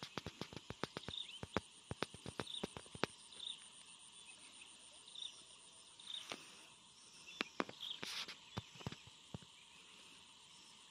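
Faint outdoor ambience broken by sharp clicks and crackles, several a second for the first three seconds and again in a cluster about seven to nine seconds in, with a faint high chirp repeating roughly once a second.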